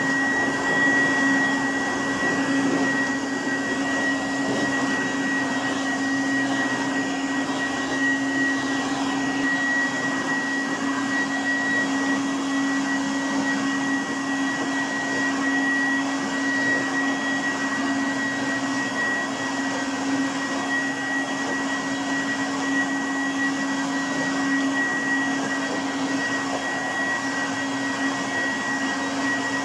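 Goblin Laser 2200X upright vacuum cleaner running steadily, its motor giving an even rushing noise with a steady high whine and a lower hum.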